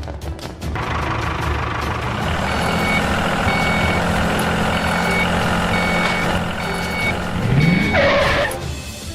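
A construction vehicle's engine running steadily while its reversing alarm beeps six times, about once a second. Near the end there is a rising swish, the loudest sound in the stretch.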